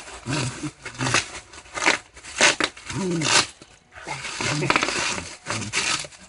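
Bubble wrap being chewed and trampled by a Shetland sheepdog: crinkling plastic and bursts of sharp popping bubbles, with a few short low vocal sounds in between.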